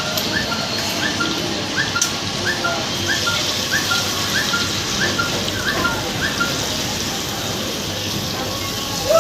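A bird chirping: short rising chirps repeated evenly, about one and a half a second, stopping about six and a half seconds in, over a steady background hiss.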